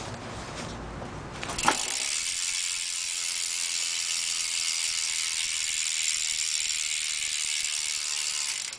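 Eastern bi-directional cassette hub on a BMX rear wheel freewheeling: the pawls ratchet in a fast, even clicking that blurs into a steady buzz. It starts after a sharp click about two seconds in and cuts off suddenly near the end.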